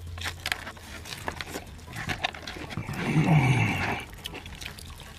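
A person eating noisily: wet mouth clicks and smacking throughout, and about three seconds in a low moan that falls in pitch.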